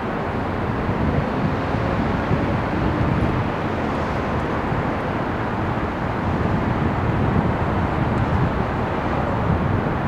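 Steady traffic noise from passing road vehicles, a continuous low rumble that swells slightly now and then.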